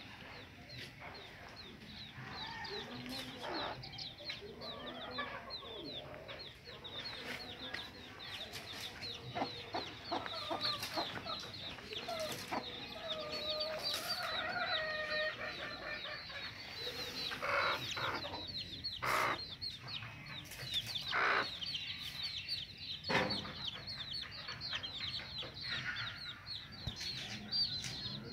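A brood of young chicks peeping constantly in quick, high cheeps, while their mother hen clucks in lower calls, mostly in the middle. A few sharp knocks come in the second half.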